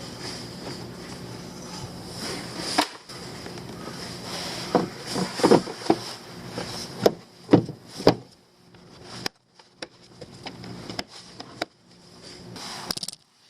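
Irregular knocks and clicks over a steady faint hum, coming thickest between about four and eight seconds in, then thinning out.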